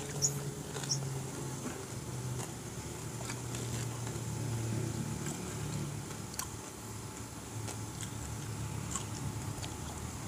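Quiet hand-eating sounds: sparse soft clicks of fingers picking at food and of chewing, over a low wavering hum.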